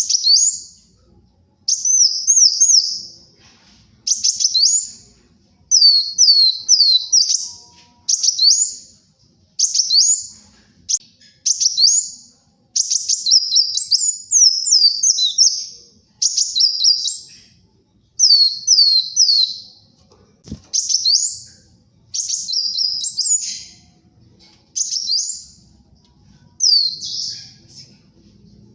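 Kolibri wulung sunbird singing loudly and continuously: short, high phrases of quick sweeping chirps, repeated every second or two with brief gaps between them. There is one faint knock about two-thirds of the way through.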